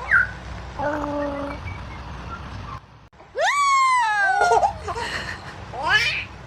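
A loud, high-pitched squealing sound that glides steeply downward in pitch, preceded about a second in by a shorter steady tone and followed near the end by a brief baby laugh.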